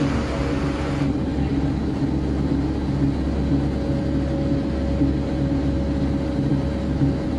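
Steady low hum of factory machinery, with a few held tones and no distinct strokes. A hissy upper layer drops away about a second in.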